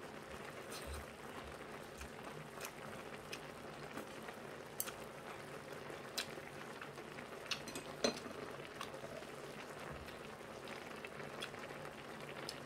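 Eating sounds: chewing, with scattered light clicks of metal chopsticks against the dishes, over a steady faint hiss.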